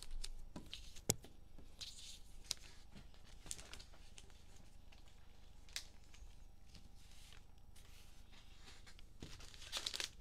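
Quiet handling of trading cards and plastic card holders: scattered sharp clicks and taps, the loudest about a second in, over light rustling that picks up near the end.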